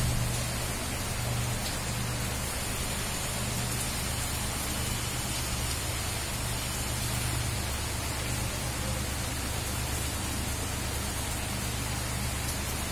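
Steady rain falling on a road and surroundings, an even continuous hiss, with a low steady rumble underneath.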